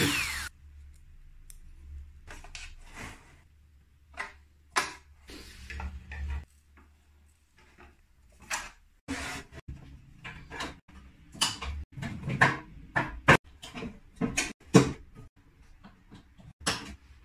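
Irregular clicks, knocks and scrapes of a metal latch and a plastic tool box being handled, thickest in the second half.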